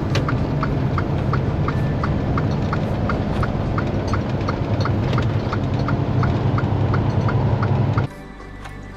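Semi truck's diesel engine droning steadily in the cab at highway speed, with a turn signal ticking evenly about two and a half times a second. Both cut off suddenly about a second before the end.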